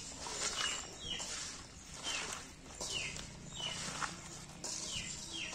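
A hand squeezing and tossing cut vegetables coated in spice paste and oil in a metal basin: a wet, squelching rustle that repeats about every second, each stroke with a short squeak.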